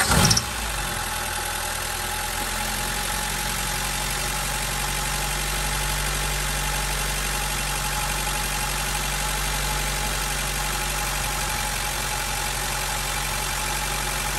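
An Acura Integra GSR's four-cylinder engine fires up right at the start, then idles steadily on freshly installed spark plugs. The idle is a little high.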